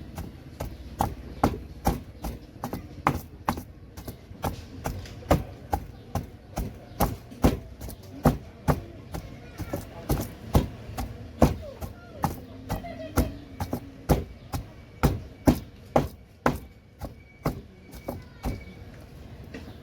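Steady series of sharp knocks or chops, about two to three a second, keeping up an even rhythm.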